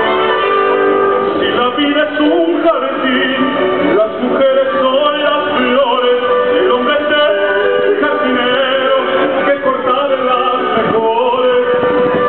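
Live symphony orchestra playing, with a male tenor singing over the strings and sustained held notes.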